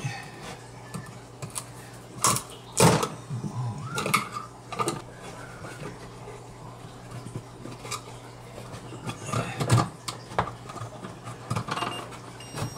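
A metal electrical switch box being worked loose from its wall opening: irregular metallic clicks, knocks and scraping, loudest about two to three seconds in and again near ten seconds, over a steady low hum.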